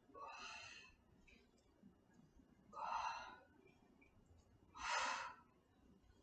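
A woman's forceful exhales, three short breaths about two seconds apart, one with each side-to-side twist of a Russian twist.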